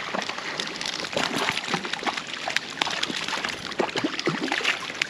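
Hooked trout splashing and sloshing at the surface as it is reeled in on a light spinning rod, with many irregular sharp splashes.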